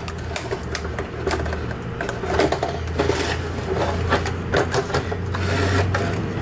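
Plastic crackling and clicking in quick, irregular bursts as the glued plastic gauge face plate of a truck instrument cluster is pried off its circuit board by hand, with a low hum underneath.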